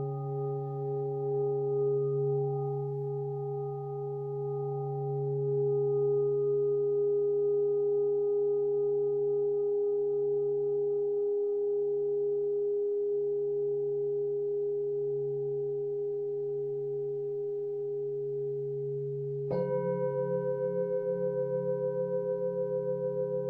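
Singing bowls ringing in long, steady tones. About twenty seconds in, another bowl is struck, adding higher tones that pulse in a slow wobble.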